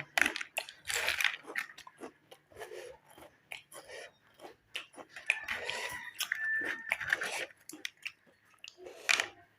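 Close-up crunching and chewing of crunchy packaged chips in the mouth: irregular sharp crunches, with a denser run of crackling in the middle.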